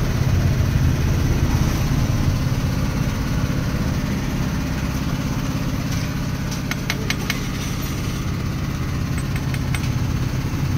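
A motorcycle engine idling steadily. A quick run of sharp clicks comes about two-thirds of the way through.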